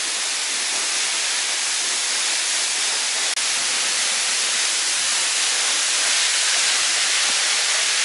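Small Chegem Waterfall close by: falling water making a steady, loud rushing hiss, with a momentary break a little over three seconds in.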